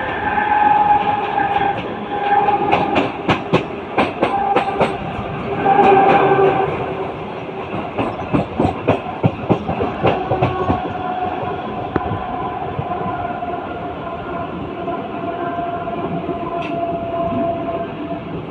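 Mumbai local electric multiple-unit train running, its wheels clicking rapidly over rail joints and points for several seconds, over a steady motor whine. In the second half the whine slowly falls in pitch as the train eases its speed.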